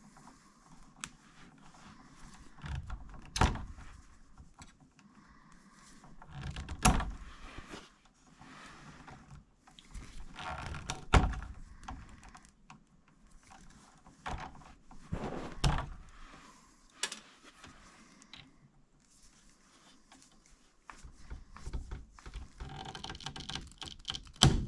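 Hand-work noises from tools and wiring being handled at a furnace's electrical box: about five dull knocks spread through, with rustling and scraping between them.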